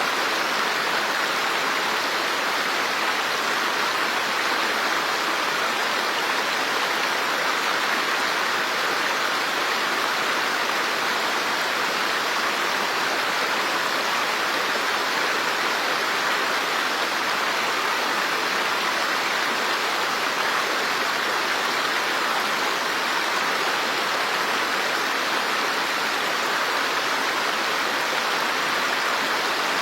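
Running water rushing steadily, an even hiss with no breaks or separate splashes, like a stream or small waterfall.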